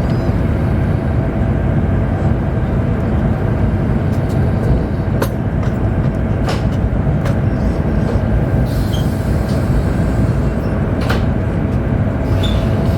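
Steady rumble and hum inside a Chinese high-speed train running at speed, with a thin steady tone above the rumble and a few brief clicks.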